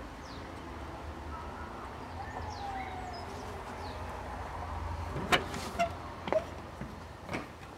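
A low, steady rumble, then several sharp clicks and knocks from about five seconds in, as a door latch is worked and a wooden glazed door is opened.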